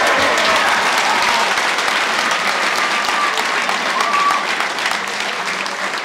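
Crowd applauding, a dense steady clapping that starts to die away near the end.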